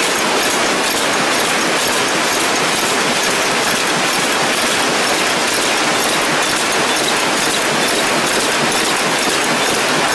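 Automatic bouillon-cube wrapping and packaging machines running: a steady, dense mechanical clatter and hiss with faint rapid ticking, at an even level throughout.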